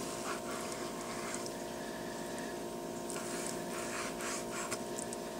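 Chef's knife slicing thin strips from a raw steak on a plastic cutting board, a few faint soft strokes over a steady background hum.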